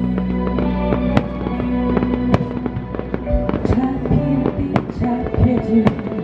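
Live band playing a slow instrumental passage, with keyboard and bass holding long notes. Sharp, irregular cracks cut through the music about once a second.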